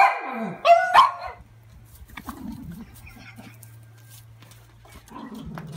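A Yorkshire terrier howls, "singing" on command, in a few short howls that each fall in pitch. The howls stop about a second and a half in, leaving only a faint low hum.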